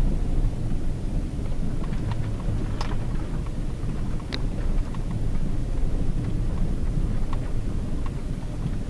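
Low in-cabin rumble of a Hyundai Tucson JM with its 2.0 petrol four-cylinder driving over a rough dirt road, tyre and suspension noise mixed with the engine. A handful of short sharp clicks and knocks punctuate it.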